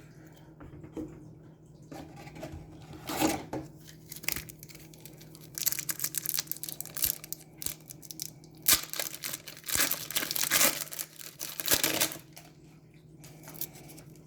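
A hockey card pack wrapper being torn open and crinkled by hand in several irregular bursts, loudest about two-thirds of the way through, over a faint steady hum.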